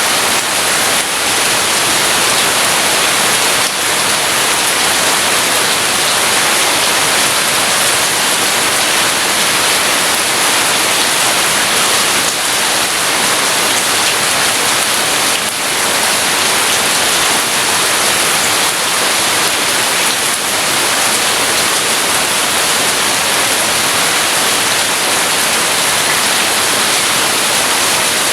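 Heavy rain falling, a loud, steady, even hiss with no thunder rumble.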